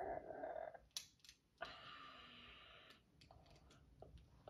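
Faint, scattered clicks of small plastic Lego pieces being handled and pressed together.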